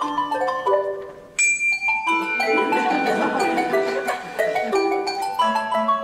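Handbell quartet playing a brisk tune of short bell notes. About a second and a half in, after a brief dip, a single high bell note rings out, and a dense, rapid flurry of notes follows.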